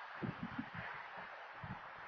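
Wind buffeting an outdoor Nest security camera's microphone: irregular low thumps, several a second, over a steady hiss.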